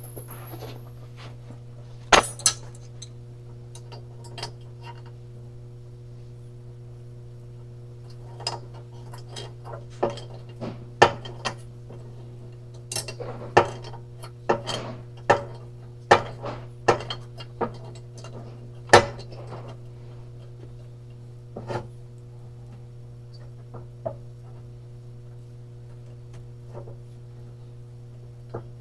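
Hand tools and loose parts clinking and knocking against an aluminum cylinder head and the metal bench top in irregular, scattered strikes, busiest in the middle and thinning out toward the end, over a steady low hum.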